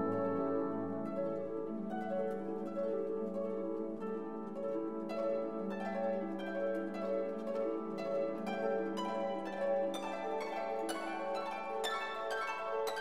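Background instrumental music: a run of plucked string notes over a held low note.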